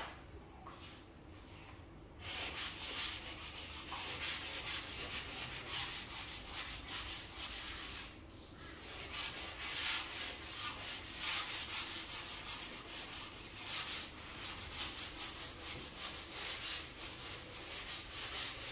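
Sanding block rubbed by hand in quick back-and-forth strokes over a dried plaster patch on drywall, smoothing it and blending its edges into the wall. The scraping starts about two seconds in and eases off briefly near the middle.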